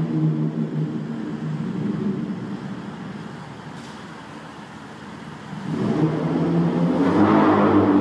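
Lexus GS300's 2JZ-GE inline-six with the muffler and resonator deleted, its straight-piped exhaust in a concrete parking garage. It fades through the middle, then grows louder as the car comes back and passes close near the end.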